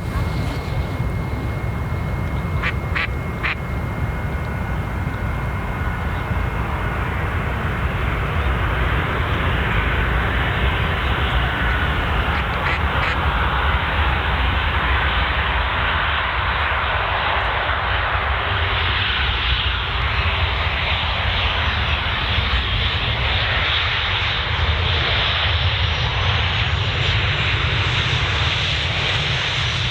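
Jet engines of a Boeing 737-800 on landing approach: a steady rushing jet noise that grows a little louder about ten seconds in.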